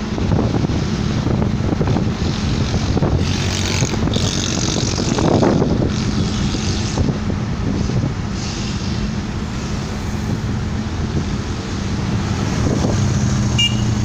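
Road traffic heard from inside a moving car: a steady engine hum under tyre and road noise. It grows louder near the end as a motorcycle comes alongside.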